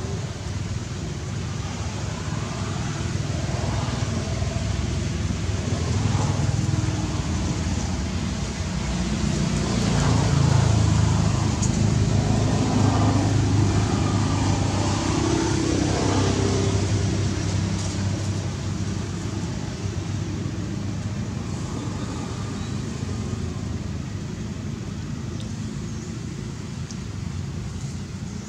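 A motor vehicle passing: a low engine and road rumble that builds to its loudest about ten seconds in, then slowly fades away.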